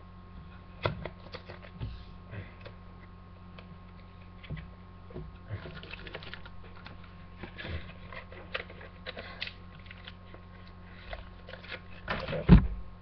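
Foil Pokémon card booster pack rustling and crinkling as it is opened and the cards are handled, with scattered light clicks. A single loud thump near the end.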